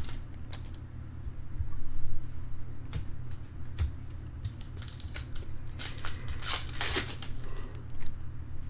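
Baseball trading cards and their foil pack wrappers being handled: short swishes, clicks and crinkles as cards are slid and flipped, with louder rustles about two seconds in and again around the seven-second mark, over a steady low hum.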